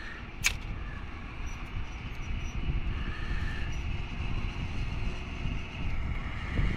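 A train coming along the track: a low rumble that grows steadily louder, with a faint high steady note above it. There is a single sharp click about half a second in.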